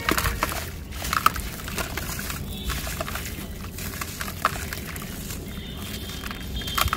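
Wet, gritty sand clumps crumbling and squishing between hands in a bucket of water, with sloshing and many short, scattered crunchy crackles.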